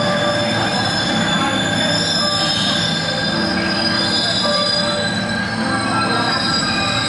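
Shanghai Metro train running on its rails, its wheels squealing in several steady high-pitched tones over a loud rumble.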